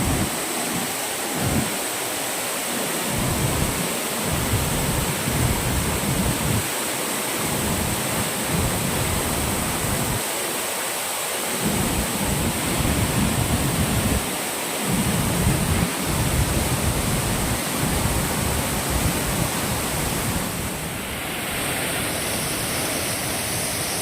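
Pippalabhadra waterfall in heavy flow, swollen by heavy rains: a loud, steady rushing roar with irregular low rumbling surges beneath it.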